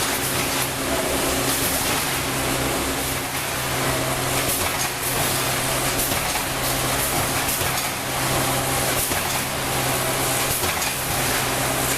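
Wire straightening and cutting machine running: a steady motor hum under a continuous hiss and rattle of wire feeding through the machine.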